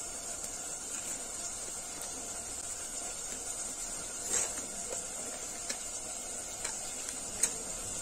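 Close-miked chewing with the mouth closed on small green fruit wrapped in a leaf: a few faint, short crunches and clicks, the clearest about four and a half and seven and a half seconds in, over a steady hiss.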